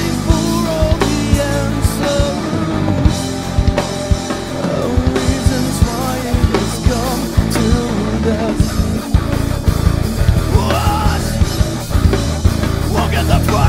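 Live rock band playing: a drum kit with cymbals, electric bass and guitar, with a male singer's vocal line over the top.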